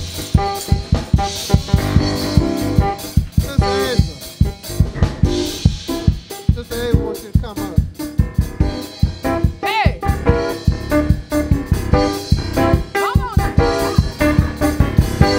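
Church band music: a drum kit keeping a steady beat under sustained keyboard chords.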